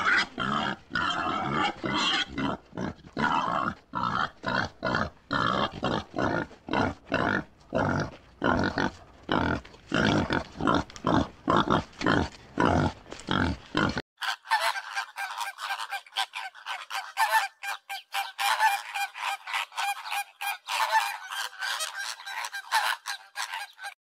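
Animals calling in quick, repeated cries. About halfway through the sound changes abruptly to a thinner, more rapid run of calls.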